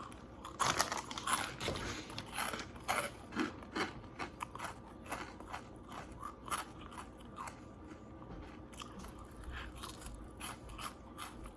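A person chewing pecans close to the microphone: irregular crisp crunches, several a second at first and softer and sparser later on.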